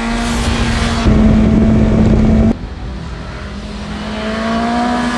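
BMW S1000XR's inline-four engine running at steady high revs while riding, louder from about a second in. After an abrupt cut about halfway through it returns quieter, its pitch rising slowly as the revs climb.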